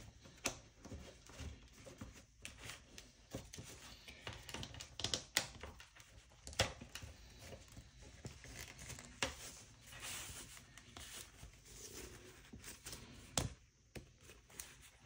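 Stiff cross-stitch fabric rustling and crinkling as it is pressed into a plastic Nurge embroidery hoop, with scattered sharp clicks and taps of the plastic frame, the loudest about halfway and near the end.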